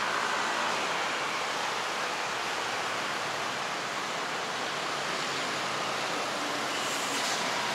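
Steady wash of city road traffic: cars, trucks and scooters passing on a busy multi-lane street, heard as an even hiss.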